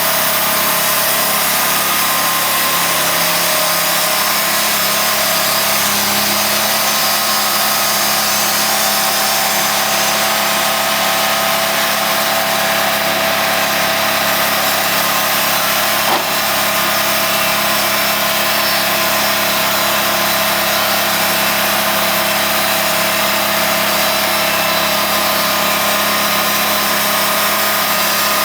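Sawmill running steadily as its blade cuts lengthwise through a large mesquite log, with one short sharp click about halfway through.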